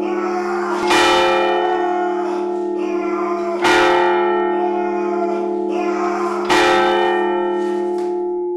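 A deep bell tolling slowly, struck three times about three seconds apart, each stroke ringing on and fading slowly.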